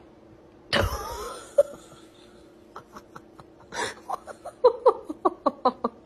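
A person laughing: a loud burst just under a second in, then a run of quick, evenly spaced ha-ha pulses with a wheezy breath in the middle.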